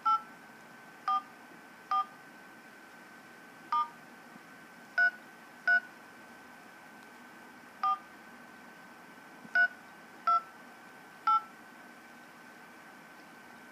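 Touch-tone phone keypad dialing ten digits, each press a short two-tone beep, spaced unevenly about a second apart, over a faint steady high tone. The tone pairs spell 844-733-4328, the toll-free number 1 (844) SEE HEAT dialed without the leading 1.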